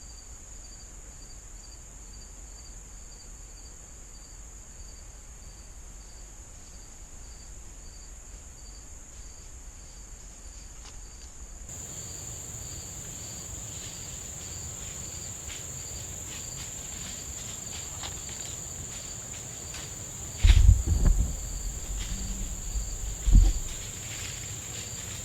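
Steady chorus of crickets and other insects with low wind rumble. About twenty seconds in, a single sudden loud bang with a low rumble after it, the 12-gauge shotgun firing double-aught buckshot, and a few seconds later a second, duller low thump.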